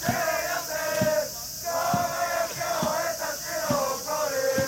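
A cheering section of supporters chanting a cheer song in unison, with a drum beating along in a rough, steady rhythm.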